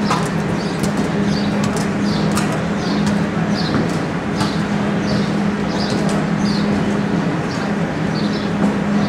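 Steady low hum of a large indoor arena, with a short high chirp repeating about every half second and a few faint clicks.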